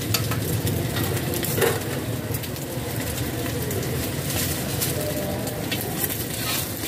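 Rice noodles sizzling in oil in a carbon-steel wok over a gas burner with a steady low rumble, while a metal spatula scrapes and clinks against the wok several times.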